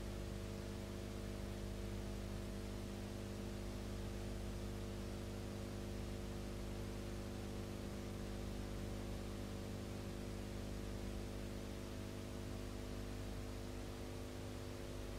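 Steady electrical mains hum, a stack of unchanging tones, over a constant background hiss: the noise floor of a silent film's audio track, with no sound from the scene itself.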